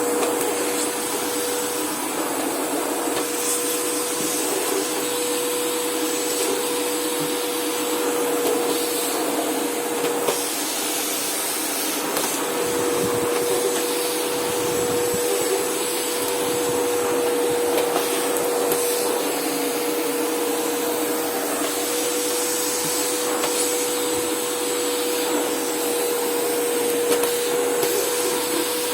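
Unbranded FJ-188 600 W vacuum cleaner running steadily, its motor giving a continuous rushing sound with a steady whine.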